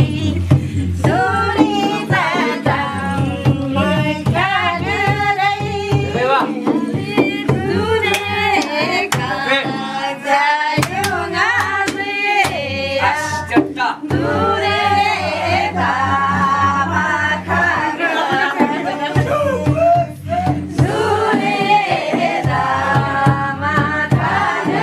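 A song with singing voices, sounding like a group or choir, over a steady pulsing bass.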